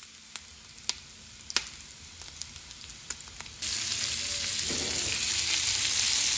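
Bacon and onions frying in fat in a pan: a low sizzle with sharp spattering pops. About three and a half seconds in it jumps to a louder, steady sizzle of peppers, broccoli and onion frying.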